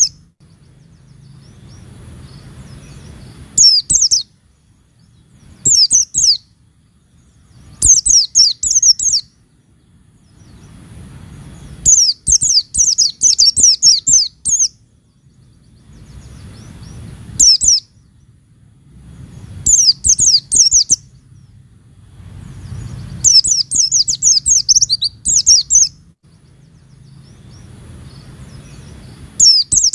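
White-eye (pleci) singing in bursts of rapid, very high chirping notes, each lasting from under a second to about three seconds and coming a few seconds apart. A faint low rumble fills the gaps.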